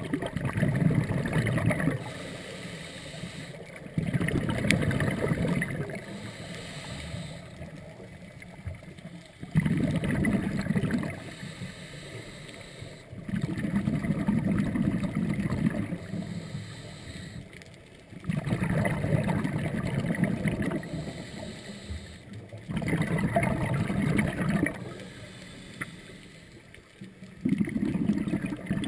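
Scuba diver's breathing heard through the camera housing underwater: regulator exhaust bubbles come in bursts of two to three seconds, about every four to five seconds, with quieter stretches between them.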